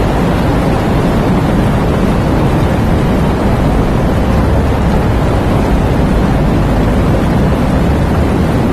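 Heavy rain falling: a loud, steady rushing with a low rumble underneath.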